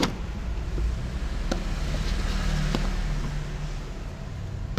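Low steady rumble of road traffic, with a few light clicks from the plastic ice container being handled.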